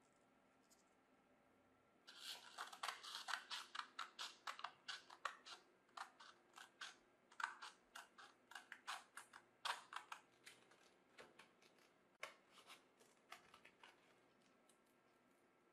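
Scissors snipping through a sheet of P320 silicon carbide sandpaper to cut out a round disc: a quick run of short, crisp cuts begins about two seconds in and grows sparser toward the end.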